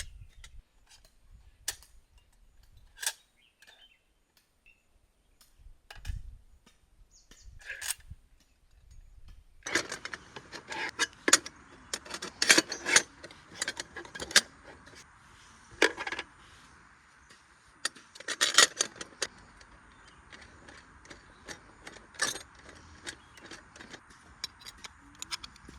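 Irregular clinks and rattles of small hard objects being handled, sparse at first and busier from about ten seconds in, when a steady hiss joins them.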